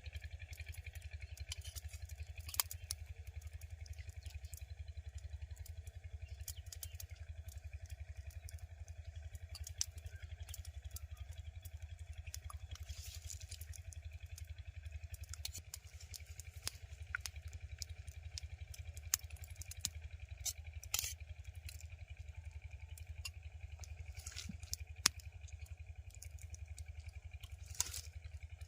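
Steady low wind rumble on the microphone, with scattered sharp crackles and clicks at irregular moments.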